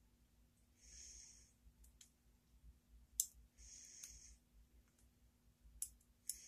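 Faint metal-on-metal sounds from a thin pick worked inside the pin chambers of a brass lock cylinder during disassembly: two soft scrapes about a second long and a few sharp small clicks, the loudest just after three seconds in.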